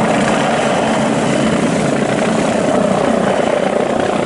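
Helicopter sound effect: steady rotor and engine noise played for a toy police helicopter.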